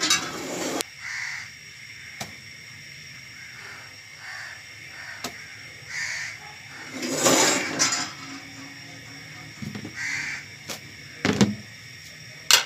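Crows cawing, single short caws every few seconds. Between them come sharp knocks and clatter of cookware as a metal tawa and wire tongs are handled while roasting rotis, the loudest a noisy burst about seven seconds in and sharp knocks near the end.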